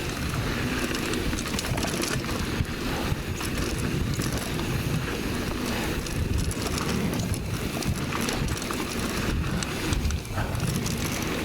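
Mountain bike riding fast over a loose, dry dirt trail: steady tyre rumble with frequent clatters and knocks from the bike over bumps, and wind buffeting the microphone.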